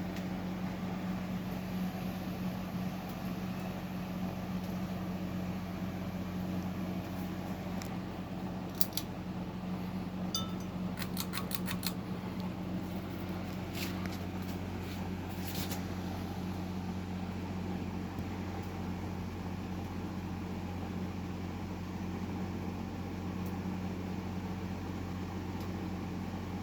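1998 Windmere 52-inch ceiling fan running with a steady motor hum. A run of light clicks and ticks comes about halfway through.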